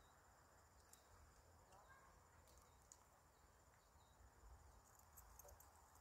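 Near silence with a faint steady high insect trill, like crickets, and a few faint clicks.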